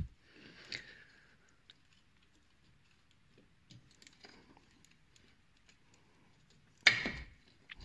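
Faint handling noises, small clicks and rubbing, as a split polyurethane anti-roll bar bush is worked by hand onto the bar. One louder, short knock comes near the end.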